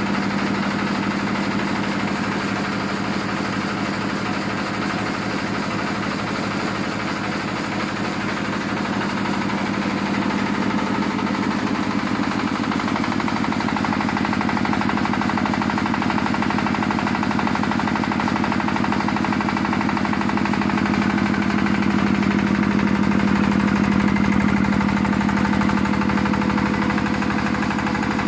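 Yanmar TF120M single-cylinder diesel engine running steadily with a rapid, even knocking beat, belt-driving a generator head. It grows a little louder about three-quarters of the way through.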